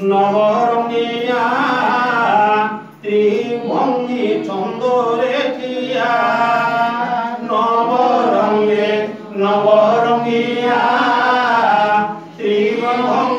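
Devotional chanting sung in long melodic phrases, broken by short pauses about three, nine and twelve seconds in.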